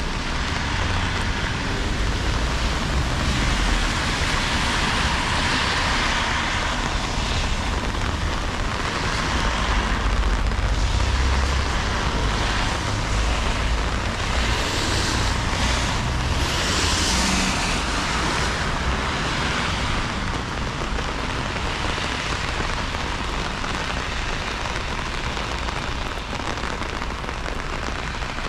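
Steady rain hiss over a low rumble, the hiss swelling louder a few times, most strongly a little past the middle.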